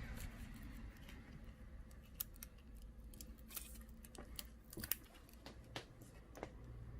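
Scattered light clicks and scrapes of hand work prying at a laptop's touch-screen assembly, with one sharper click about five seconds in, over a faint low hum.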